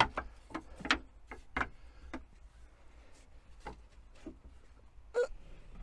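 Wooden bed slats being set and knocked into place on a van's bed frame: a string of irregular sharp wooden clicks and knocks, the loudest right at the start.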